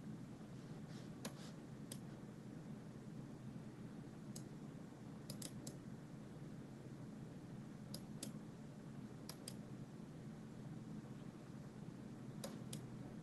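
Computer mouse clicking: a dozen or so sharp clicks, mostly in quick pairs, every couple of seconds, over a low steady hum.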